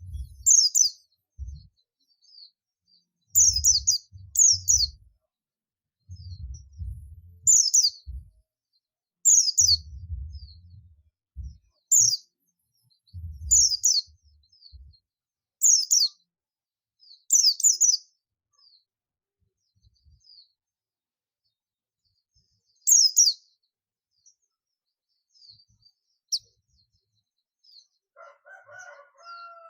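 Buxtoni white-eye (Zosterops) giving sharp, high chirps in short clusters every one to two seconds, with soft ticks between them. This is the repeated calling that keepers call 'ngalas'. Low thumps or rumbles sound under the first half.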